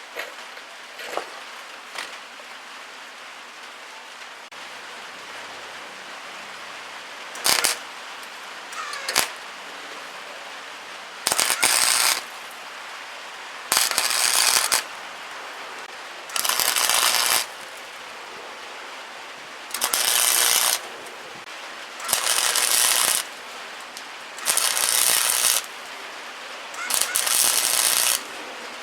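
Welder laying tack welds on sheet steel: seven separate crackling bursts of about a second each, spaced a second or two apart, after a couple of sharp knocks.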